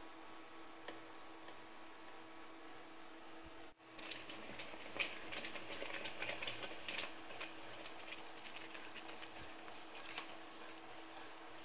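Steel spoon stirring thick tomato sauce in a non-stick pan: quick irregular clicks and scrapes of the spoon against the pan, starting about four seconds in, over a steady hum.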